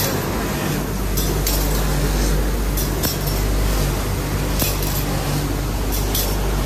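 Steel spoons clinking against metal at irregular intervals over the steady hum and drone of running spoon-making machinery.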